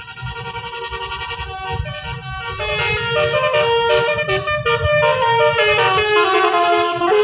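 Bus 'telolet' musical air horn playing a tune of stepped notes, getting louder as the bus approaches, over the rumble of its engine.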